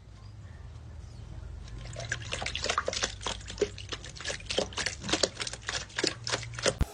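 Water dripping and splashing in a quick, irregular run of small wet clicks that thickens about two seconds in, over a low steady hum.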